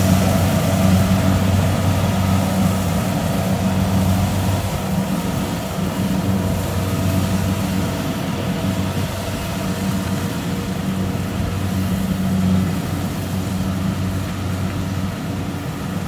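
Kubota DC-70 Plus rice combine harvester running steadily while harvesting, a continuous low engine hum with a rushing noise over it as chopped straw is thrown out at the rear.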